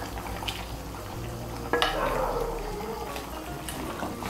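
Spiced potato curry bubbling at a boil in a pan, with a sudden splash about two seconds in as fried stinging catfish (shing) pieces go into it. A spatula works in the pan.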